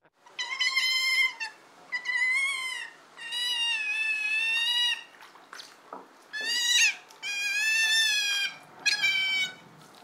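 Otters giving a run of about six high-pitched squealing calls, each about a second long, one held for about two seconds, wavering slightly up and down in pitch.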